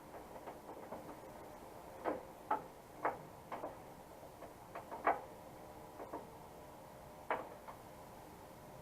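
Irregular light clicks and knocks, about half a dozen, from parts being handled and fitted inside a pickup truck door; the loudest comes about five seconds in.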